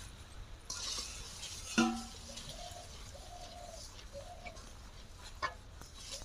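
Doves cooing in a string of short, repeated notes at one steady pitch. Under them, a spatula scrapes through a thick palm-pulp mixture in an iron wok, with one sharp knock against the pan about two seconds in.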